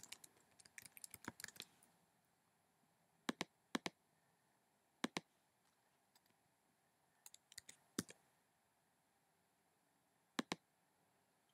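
Faint computer keyboard typing: a quick run of keystrokes in the first couple of seconds, then single key or mouse clicks spaced a second or more apart, a few in quick pairs.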